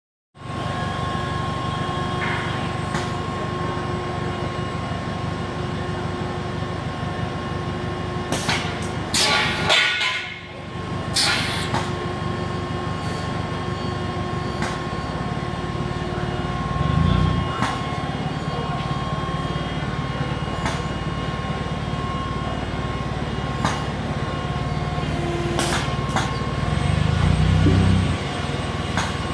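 A robotic tube-bending cell running, with a Yaskawa robot arm working a SOCO SB 90x8A MRV tube bender: a steady low machine hum with a constant whine above it. A cluster of sharp clacks comes about a third of the way in and another near the end, and the low hum swells louder twice, around the middle and near the end.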